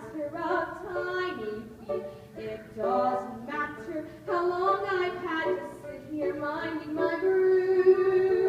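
Girls' voices singing a musical-theatre song, the sung lines rising and falling in short phrases.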